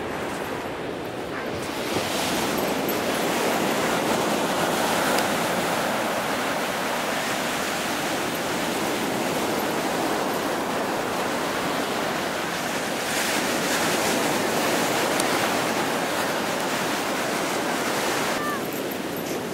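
Ocean surf breaking and washing up a sandy beach: a continuous rushing hiss that swells and eases a few times.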